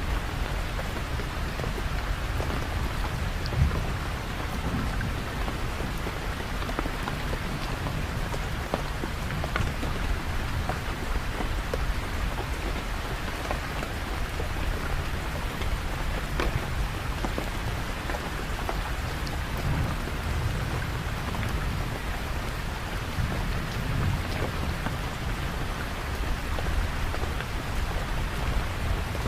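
Steady heavy rain falling, an even hiss with drops pattering on surfaces, under a low rumble of thunder that swells now and then.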